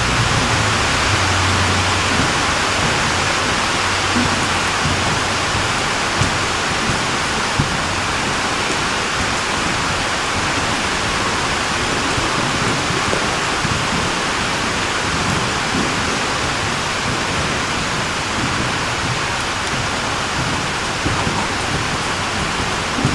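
A steady, even rushing hiss with no pitch, with a few faint soft knocks.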